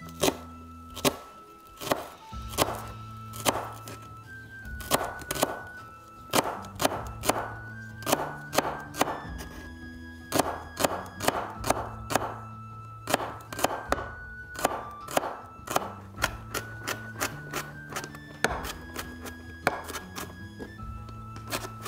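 Chef's knife slicing and chopping spring onion on a wooden cutting board: a quick, uneven series of sharp knife strikes on the board, over background music.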